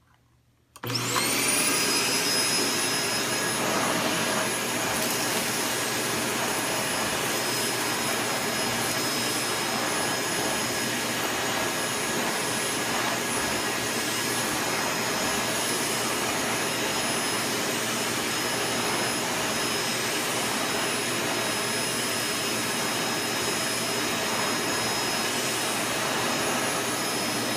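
Bissell Zing bagless canister vacuum switched on about a second in, its motor whine rising quickly to speed, then running steadily while vacuuming crumbs off carpet.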